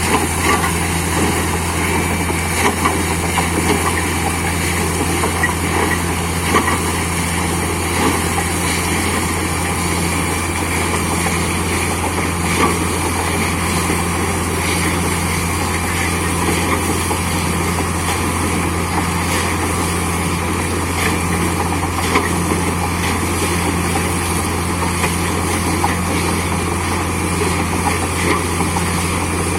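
Borewell drilling rig and its air compressor running steadily with a constant low engine hum.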